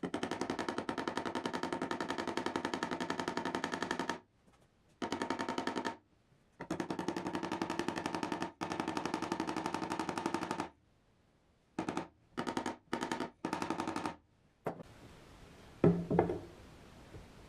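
A power tool running with a fast, even chatter in bursts of a few seconds, switched on and off several times, with a few short blips near the middle; a faint steady hum follows.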